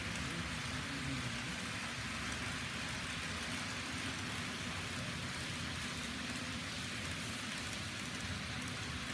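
Steady, even hiss with a low rumble underneath: room noise around a model railroad layout.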